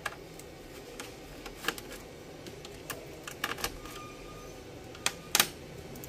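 Scattered sharp clicks and taps of a small screwdriver working the screws in a Dell Inspiron N5050 laptop's metal frame under the keyboard, the two loudest close together near the end.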